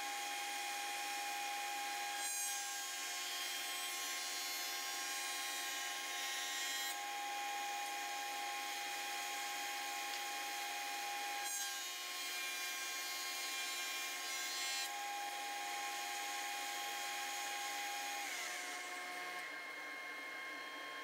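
Shopsmith jointer running with a steady whine as a scrap pine 2x4 is face-jointed. Two cutting passes come through as rough rasping stretches over the whine, and the machine winds down near the end.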